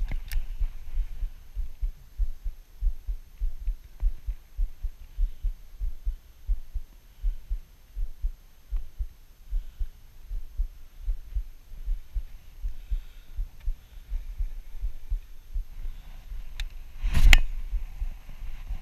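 Low, irregular thumping on a body-worn camera's microphone as an angler works a baitcasting rod and reel, with a single loud knock about 17 seconds in.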